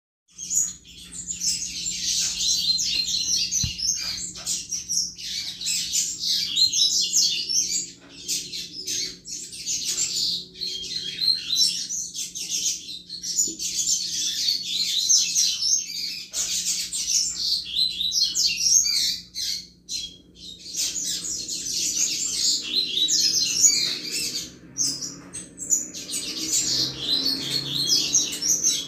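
Double-collared seedeater (coleiro) singing the "chuva" song type: long runs of rapid, high twittering notes broken by a few short pauses.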